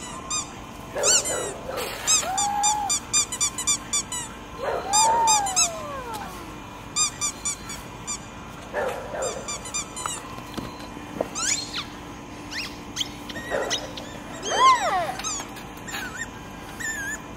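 A pit bull's rubber squeaky ball squeaking in quick runs as the dog chomps on it, with a few longer squeals that rise and fall.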